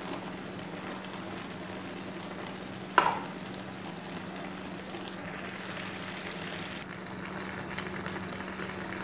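Bombay duck fish, onions and spring onion greens frying in a pan, giving a steady sizzle with a low hum beneath it. One sharp click about three seconds in.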